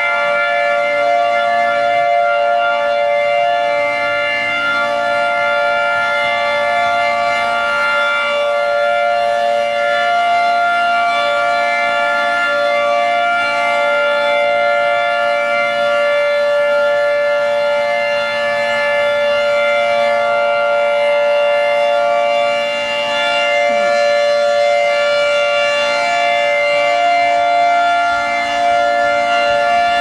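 Outdoor tornado warning siren sounding a steady, unbroken tone, the public alert that a tornado warning is in effect.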